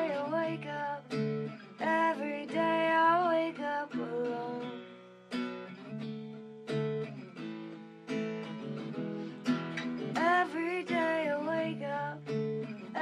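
A rock ballad with strummed acoustic guitar and a woman singing over it.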